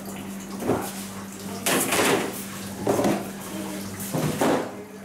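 White plastic dough trays being lifted and set down: about five knocks and clatters, the longest near two seconds in, over a steady low machine hum.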